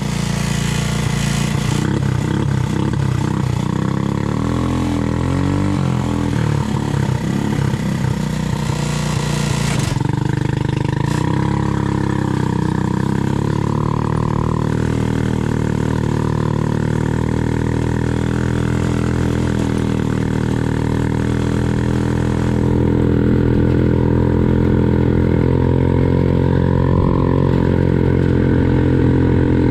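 A Yerfdog Spiderbox buggy's 150cc GY6 single-cylinder four-stroke engine with CVT transmission runs under load while driving. The revs rise and fall through the first ten seconds, then hold steadier, getting a little louder near the end.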